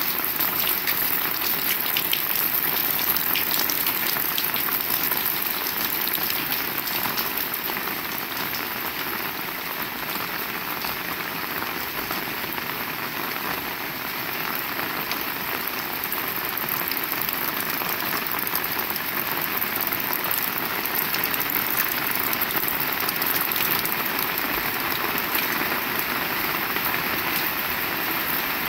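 Heavy rain falling steadily, a dense hiss of countless drops striking surfaces. It eases slightly about halfway through, then picks up again.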